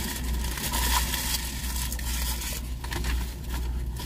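Close-miked chewing and mouth sounds from eating a bologna sandwich: irregular wet crackles and smacks over a steady low hum inside the car.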